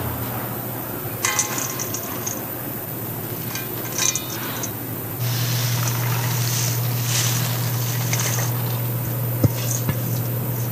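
Kitchen food-prep sounds: a few short clinks and clatters and some liquid noise, with a steady low hum that comes in about five seconds in.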